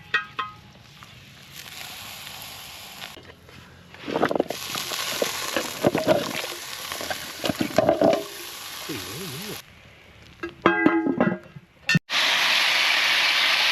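Bacon and eggs sizzling as they fry in a pan, in several short stretches with cuts between them. The sizzle is loudest and steady for the last couple of seconds.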